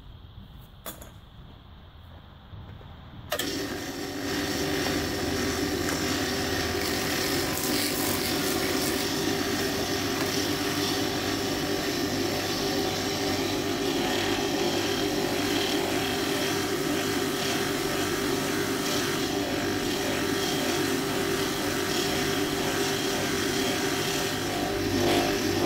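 An old grinder converted into a polishing machine, switched on about three seconds in after a couple of faint clicks, then running steadily with a stitched cloth buffing wheel spinning on its extended shaft.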